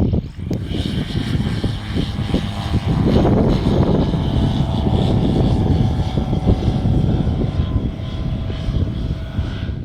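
Light single-engine propeller aeroplane's piston engine and propeller running steadily.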